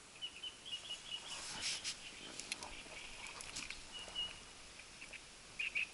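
Small bird chirping with short high notes, in a quick run near the end, over a few soft knocks and rustles.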